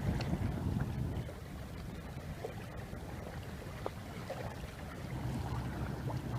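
A boat on the water: a steady low rumble with wind on the microphone and a few light knocks.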